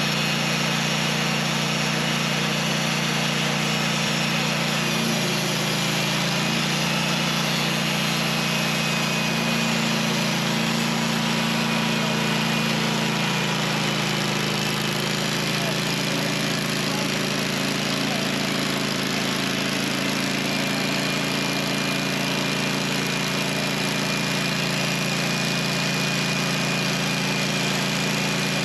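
Engine of a portable band sawmill running steadily; its low note shifts slightly about halfway through.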